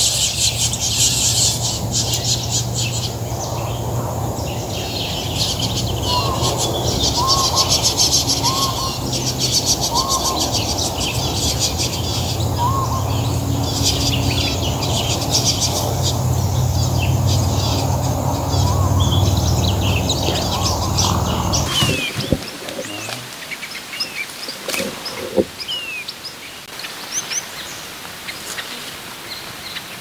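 Long-tailed finches chirping over a dense, steady background of high buzzing chatter and low rumble. About two-thirds of the way through, the background cuts off abruptly, leaving scattered short, falling chirps.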